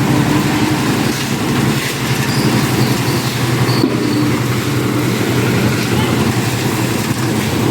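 Engine of a concrete lift mixer machine running steadily, with people's voices over it.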